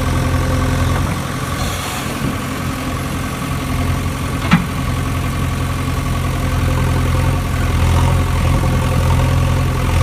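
Steady low drone of a heavy engine idling, an engine sound effect rather than the toy itself, which is pulled on a string and has no motor. A single sharp click comes about halfway through.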